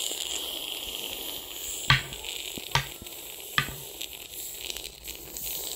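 A metal spatula knocking against a small pan three times, a little under a second apart, the first knock the loudest.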